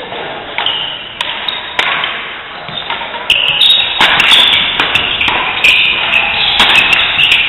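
Badminton rackets hitting a shuttlecock back and forth in a fast doubles rally: sharp smacks every half second to a second. Shoes squeak briefly on the court floor between the hits.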